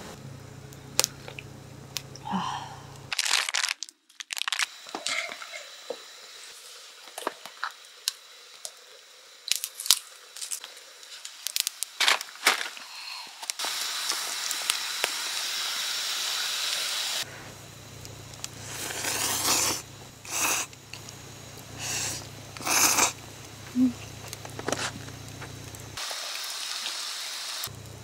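Camp cooking and eating sounds over several cuts: packaging crinkling and tearing with light clicks and knocks. A few seconds of steady hiss come from a pot steaming under its wooden lid, and later short bursts of noodles being slurped and eaten.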